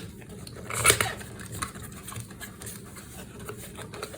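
Cardboard packaging of a gaming mouse being opened and handled: a sharp rustling scrape about a second in, then soft taps and rustles.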